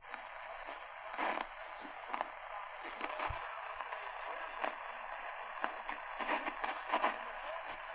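Realistic DX-380 portable radio's speaker giving medium-wave AM static: a steady hiss with frequent crackles while tuned to a weak station, a faint voice buried in the noise.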